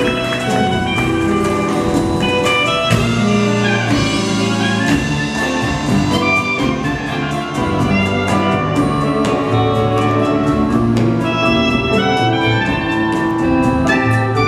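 Live orchestra playing an instrumental passage, with many held notes over a steady drum beat and no singing.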